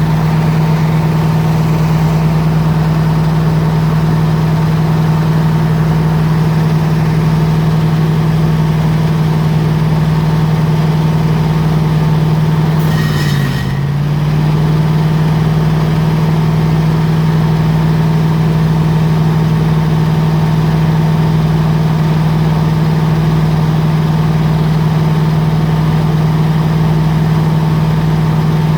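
The 302 air compressor running steadily with a strong, even hum. About halfway through, its speed sags for a moment and then picks back up.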